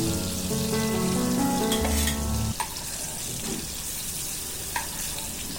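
Oil sizzling in a kadai as green capsicum (bell pepper) pieces fry, with a couple of light clicks as a metal slotted spoon lifts them out. Background music with held notes plays over the first half, then stops.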